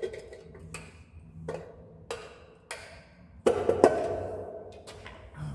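Flathead screwdriver clicking and knocking against a metal scooter engine part as it is worked and pried, an irregular series of sharp metallic clicks, several ringing briefly; the loudest pair comes about three and a half seconds in.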